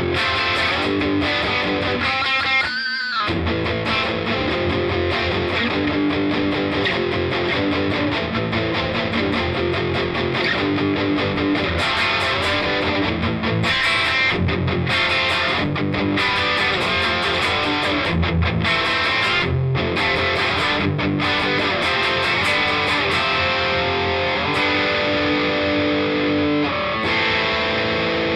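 Gordon Smith GS1000 electric guitar played through a Fender Bassbreaker 15 amp with a Tone City Golden Plexi distortion pedal: high-gain, chugging rhythm riffs.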